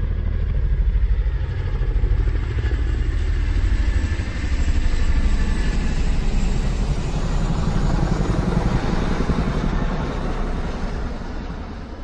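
A motor vehicle engine running steadily with a fast low pulsing, fading away near the end.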